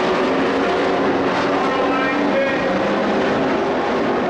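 Several race-truck engines running at speed around the track together, a steady, continuous din of overlapping engine tones that keep shifting in pitch as the trucks go by.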